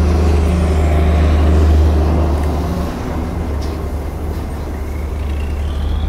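Road traffic passing close, with a heavy vehicle's low engine rumble loudest over the first two seconds, then easing off.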